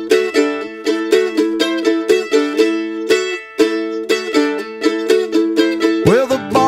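Instrumental song intro: a plucked string instrument picks a repeating pattern of short notes, about four a second. Near the end a bass part and another instrument playing sliding notes join in.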